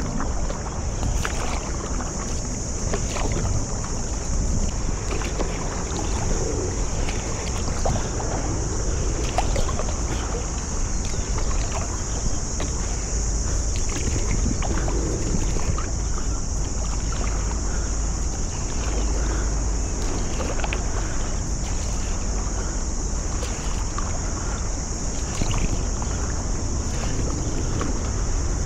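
Paddle strokes dipping into and splashing in the water beside a stand-up paddleboard, with wind rumbling on the microphone and a steady high-pitched hiss.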